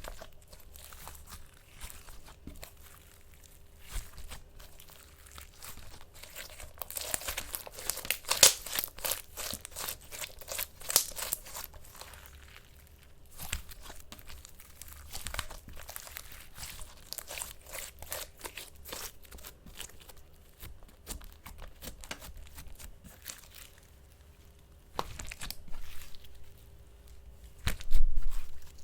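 Ink slime being squished and stretched by hand, giving off rapid crackling pops and clicks that come thickest a few seconds in, with a louder burst of pops near the end.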